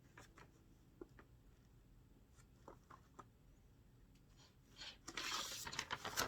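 Faint scattered clicks and taps of chair-assembly parts being handled, then about five seconds in a louder rustle lasting about a second.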